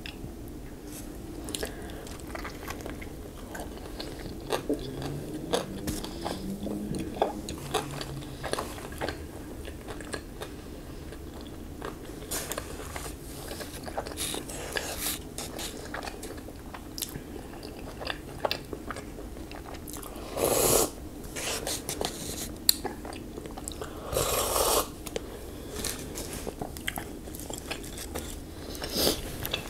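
Close-miked eating: chewing and biting with many small wet mouth clicks. About two-thirds of the way through come two louder stretches of noise, each about a second long.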